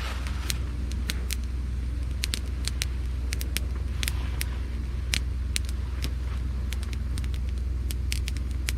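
Wood campfire of dry gathered branches crackling, with many sharp irregular pops, over a steady low hum.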